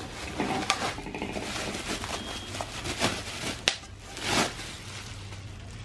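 Plastic bubble wrap crinkling and rustling as a wrapped non-stick kadai is lifted out of its cardboard box and handled. A few sharp crackles stand out, and there is a longer swish near the end.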